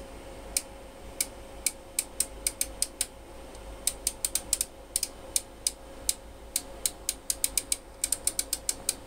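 Detented rotary switch of a Tektronix oscilloscope's time-base control clicking step by step as the knob is turned, in irregular runs of clicks. A faint steady tone sounds underneath.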